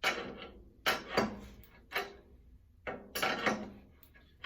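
A run of metal clanks and knocks from the stomp shear's hold-down guard being worked by hand, some ringing briefly.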